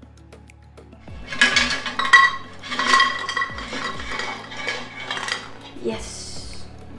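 Air-fried French fries and the air fryer's basket clattering onto a plate as the basket is shaken out, in a run of rattling shakes lasting about four seconds. Background music plays under it.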